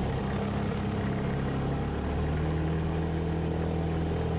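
Cessna 172 Skyhawk's piston engine and propeller running at full takeoff power during the takeoff roll, heard from inside the cabin: a steady, loud drone whose pitch shifts a little about halfway through.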